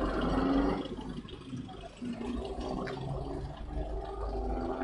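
Toyota Hilux pickup rolling slowly past at close range, a steady low engine and tyre rumble.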